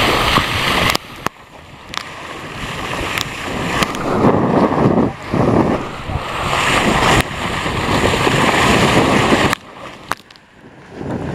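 Wind buffeting the microphone over water rushing past the hulls of a Tornado catamaran under sail, surging and easing in the gusts. The noise drops away sharply about a second in and again near the end.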